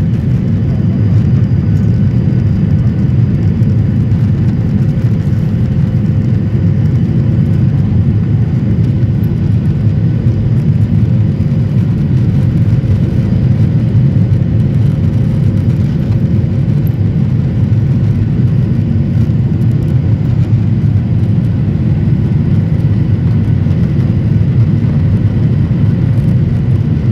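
Steady roar of a passenger jet's engines and rushing air heard inside the cabin during the climb after takeoff, with a faint steady hum running through it.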